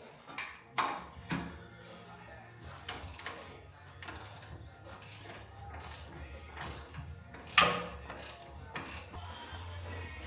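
Hand ratchet wrench clicking in short, irregular runs while the rear shock absorber bolts are worked loose, with one sharp metal knock about seven and a half seconds in.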